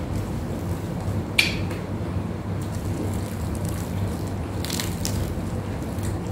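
Crispy crust of a whole deep-fried tilapia crackling as it is torn apart by hand, once about a second and a half in and again near five seconds, over a steady low hum.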